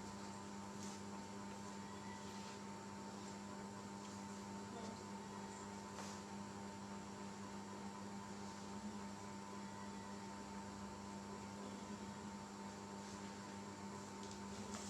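Steady electrical hum with a few faint ticks.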